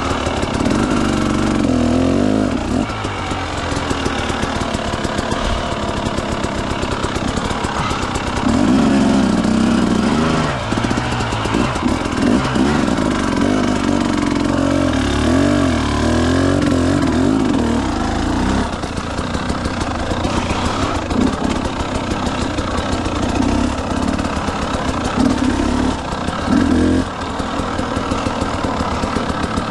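Motorcycle engine running under way, its pitch rising and falling as the throttle is opened and rolled off, with a steady rush of noise beneath it. It is loudest through a stretch a third of the way in.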